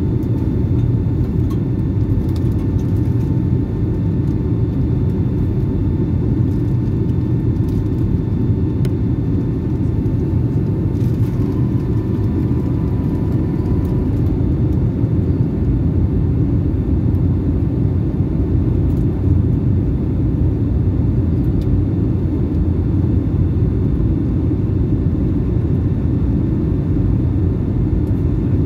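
Boeing 757-200 cabin noise in flight: the steady, even rumble of the engines and the airflow past the fuselage, heard from inside the cabin, with a faint high whine above it.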